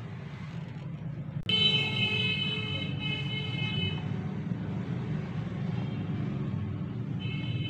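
Steady low background rumble. About a second and a half in, the level jumps suddenly and a high, steady tone of several pitches sounds for about two and a half seconds.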